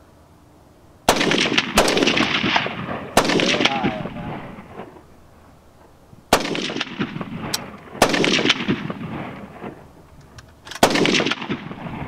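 Rifle shots: five loud shots fired a second or more apart, with a smaller crack just after the first. Each shot is followed by a long, fading echo.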